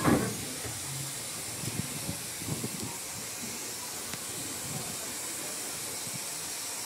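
Railway carriage rolling slowly along the track, with a steady hiss throughout and irregular low rumbles and knocks in the first few seconds.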